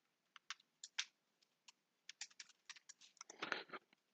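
Faint computer keyboard typing: a few scattered keystrokes, then a quicker run of keys about two seconds in.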